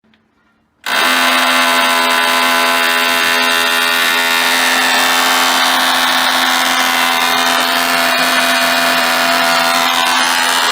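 Scaffolding-assembly construction noise: a power tool's motor running loud and steady with a whine of many tones. It cuts in abruptly about a second in, with faint knocks now and then.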